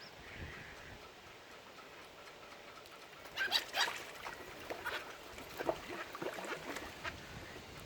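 Water birds calling: a run of short, harsh calls that starts about three seconds in and goes on in scattered bursts.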